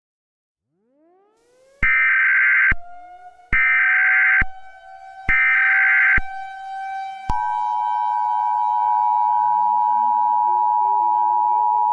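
Simulated Emergency Alert System tones: three short bursts of SAME header data, then the steady two-tone EAS attention signal comes in about seven seconds in. A siren sound effect rises again and again underneath, and lower stepped tones join near the end.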